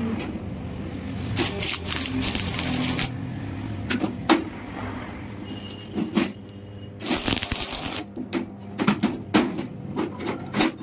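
Stick (arc) welding tacking a steel tower bolt onto an iron gate frame: two spells of arc crackle and sizzle, about a second or more each, with sharp clicks and taps of the metal being handled between them.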